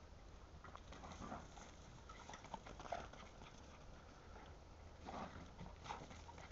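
Faint, irregular patter and scuffing of a Parson Jack Russell terrier's and a golden retriever's paws running over the garden ground, with two louder scuffs near the end as the retriever dashes past close by.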